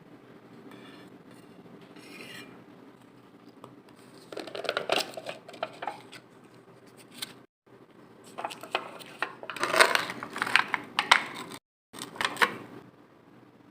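Kitchen utensils and dishes clinking and clattering in two bursts, the first about four seconds in and a longer one in the second half.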